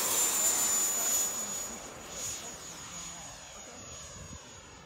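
Electric ducted fan of an E-flite F-16 RC jet at high power on its takeoff run and climb-out: a steady high whine over rushing air, fading after about a second as the jet flies away.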